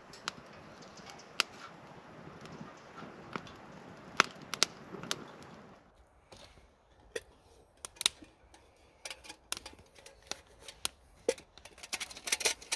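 Wood fire crackling in a small stove, with scattered sharp pops over a faint steady hiss. About six seconds in this gives way to a titanium camping pot being unpacked from its mesh bag and handled, with rustling and small metal clicks of its lid that grow busier near the end.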